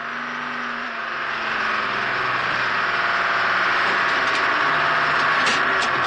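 Swaraj Mazda lorry's diesel engine running as the truck drives off and along the road, growing louder over the first few seconds. Two short clicks near the end.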